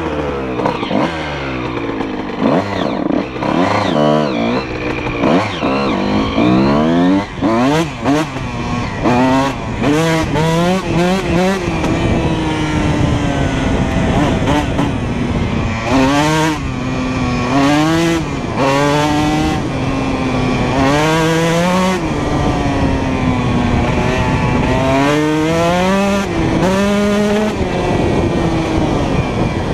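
Honda CR125R's 125 cc single-cylinder two-stroke engine with a full Pro Circuit exhaust, under way: revving up in quick rising sweeps as it shifts through the gears, then holding a steadier pitch before rising and falling again as the throttle is rolled on and off.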